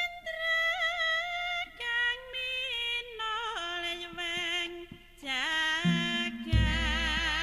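A voice singing a slow melody with long held notes that waver and slide, over ceremonial music. Deep low beats come in about six seconds in.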